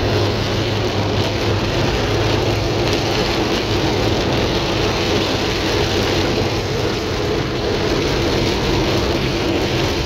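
Heavy rain beating on a car's windshield and body, heard from inside the moving car, over a steady low hum of engine and road noise.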